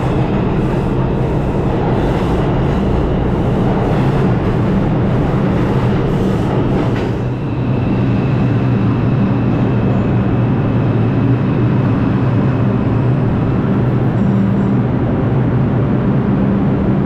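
New York City subway trains in an underground station, running loud and steady throughout. In the first part a train runs along the platform, its wheels clacking rhythmically over the rail joints. After a short lull a 2 train pulls in alongside with a steady rumble and a high, steady whine.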